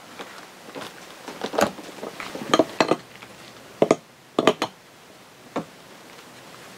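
Metal seal puller clinking and scraping against an outboard lower unit's prop shaft bearing carrier while prying out an old prop shaft seal: a series of irregular sharp clicks.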